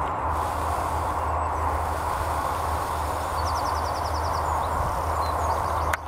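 Steady rushing outdoor noise with a low rumble, as of wind on the microphone. In the middle a bird gives a short rapid trill of about ten notes, and a few faint chirps follow near the end.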